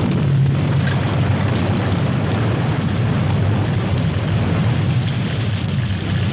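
Steady rushing sound effect of wind and rain with a low rumble underneath.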